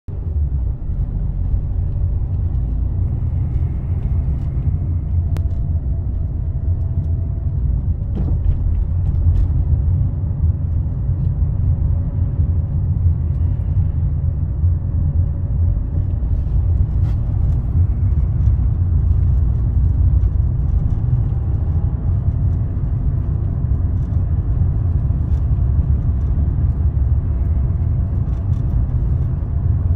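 Cabin noise of a moving car: a low, steady road rumble heard from inside the car.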